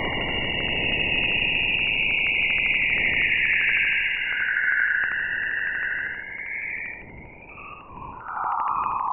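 Radio emissions from Jupiter's auroras, recorded by NASA's Juno spacecraft and shifted into the audible range. A steady hiss sits under a higher eerie band that slides down in pitch around halfway and then climbs back up, with a fast even ticking running through it. It grows quieter for a moment about seven seconds in.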